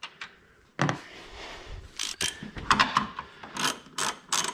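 A socket ratchet being worked back and forth on a nut, giving a run of rasping click strokes about two to three a second, after a single knock about a second in.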